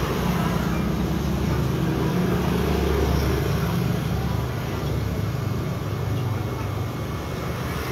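Low rumble of passing street traffic, swelling over the first few seconds and then easing off.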